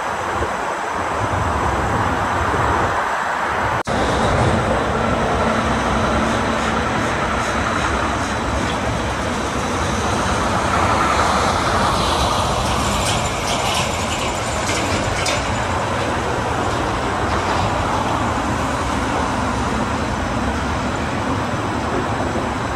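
Loud, steady rumbling noise of moving vehicles, with a brief dropout about four seconds in.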